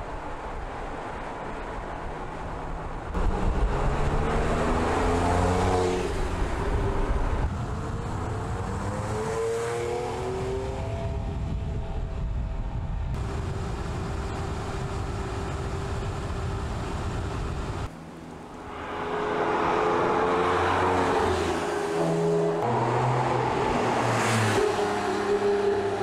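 Porsche 911 Carrera GTS (997.2) 3.8-litre flat-six engine pulling through the gears, its pitch climbing under acceleration and dropping back at each shift. There is a steady cruising stretch partway through, and the engine is louder near the end, with quick up-and-down steps in revs.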